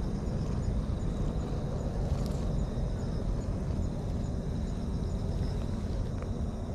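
Steady low outdoor rumble, with faint high ticks repeating about twice a second.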